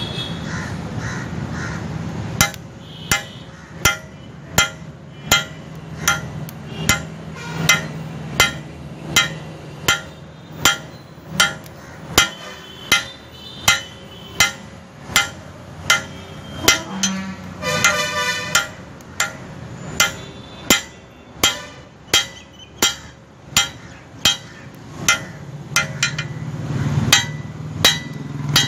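Blacksmith's hand hammer striking hot steel bar on an anvil while forging tongs: a steady rhythm of ringing blows, about three every two seconds, starting a couple of seconds in. A brief harsh call cuts in near the middle.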